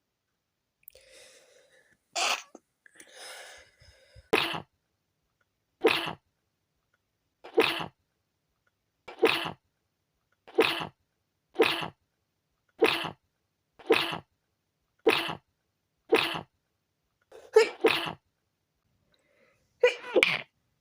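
A long fit of stifled sneezes from a tickly nose. A few breathy inhales come first, then about a dozen short, sharp, held-in sneezes follow one another roughly every second, the last ones coming in quick pairs.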